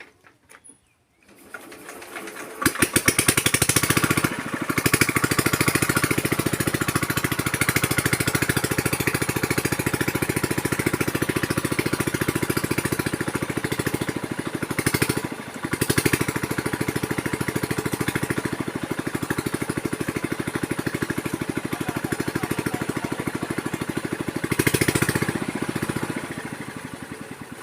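Small engine starting up and running steadily with a fast, even knock, dipping briefly partway through and fading near the end.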